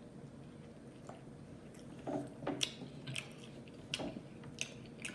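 A person chewing a spicy chicken wrap close to the microphone: short, wet mouth clicks and smacks, few at first and coming every half second or so from about two seconds in.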